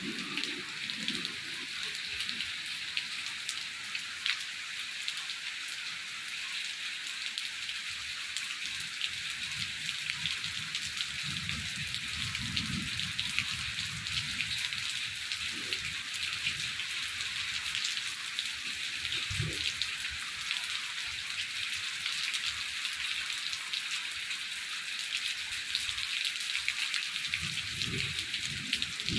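Steady rain falling, a dense even hiss with many small, sharp drop strikes scattered through it.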